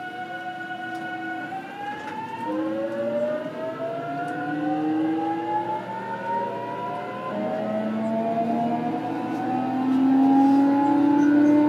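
JR Kyushu 813 series EMU's VVVF inverter and traction motors, heard inside the motor car while accelerating. The inverter whine holds a steady pitch for a moment, then climbs as a set of rising tones that step up a few times over a steady running rumble, growing louder as the train gathers speed.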